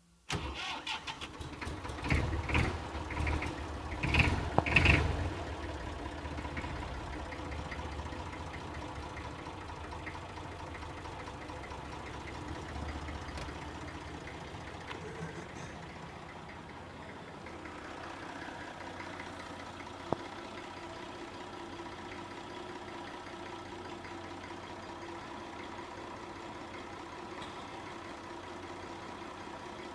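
IMT 542 tractor's diesel engine started from cold: it catches right away with a few loud, uneven bursts over the first five seconds, then settles into a steady idle.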